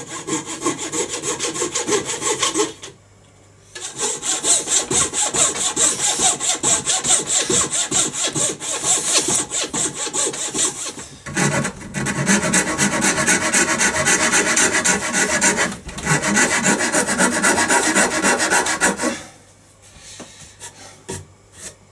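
Hand bow saw cutting a thick wooden bass guitar body blank, in steady back-and-forth strokes. It pauses briefly about three seconds in and again around eleven seconds, then stops about three seconds before the end.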